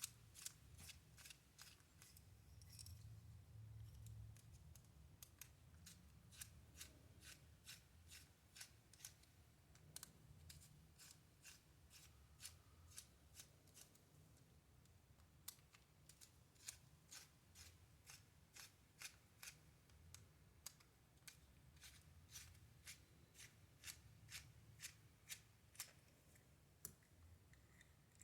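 Faint, irregular small clicks, about one or two a second, of a precision Phillips screwdriver backing small screws out of a plastic toy.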